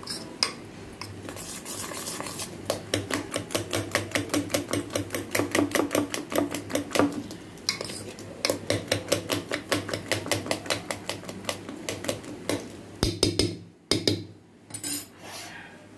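A steel spoon beating eggs and chopped vegetables in a stainless steel bowl: a rapid, even clinking of spoon against bowl, about five strokes a second. It breaks off briefly midway and stops near the end.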